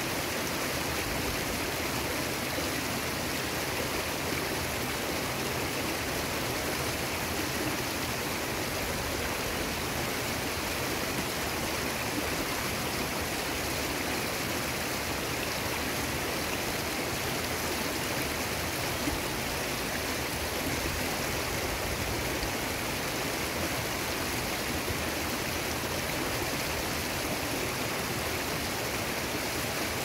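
A rocky stream rushing and tumbling over small cascades: a steady, unbroken rush of water.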